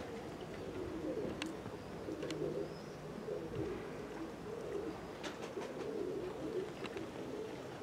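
Domestic pigeons cooing, a steady overlapping murmur of low coos with a few faint clicks.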